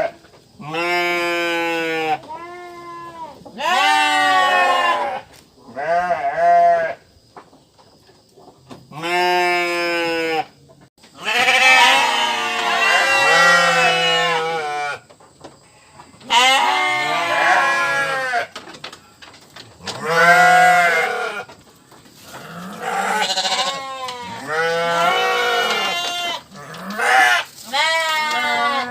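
Sheep and goats bleating: about a dozen wavering bleats, one after another with short gaps between them.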